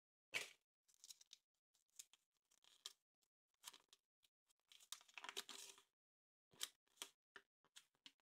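Foil wrapper of a Kinder Surprise egg crinkling and tearing in short irregular bursts, with a few sharp clicks, the sharpest about a third of a second in.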